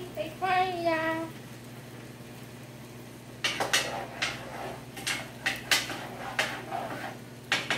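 Pots, pans and cooking utensils clattering at a stove: a run of about a dozen sharp knocks and clanks that starts a few seconds in.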